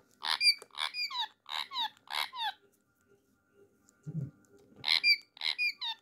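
Indian ringneck parakeet giving a quick run of short, sharp, high-pitched squawks, each dropping in pitch, then a second run near the end.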